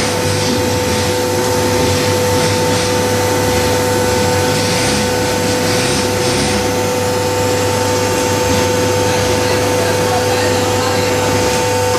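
Hydraulic baler's motor and hydraulic pump running with a steady hum and whine.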